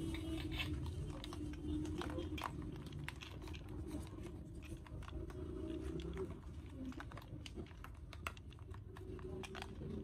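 Scattered plastic clicks and rattles as a battery cell is fitted into a toy RC car's plastic battery compartment and the cover is handled, over a steady low hum.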